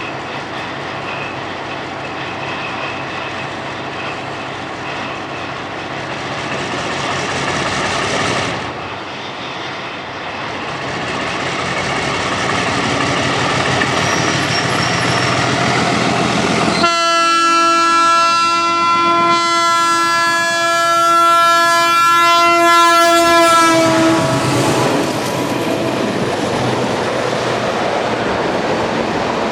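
ALCO diesel-electric locomotive engine running and building up with a heavy chugging rumble, easing briefly about a third of the way in and then rising again. Just past halfway, the locomotive's air horn sounds one long blast of about seven seconds over the engine, and the engine carries on loudly after it.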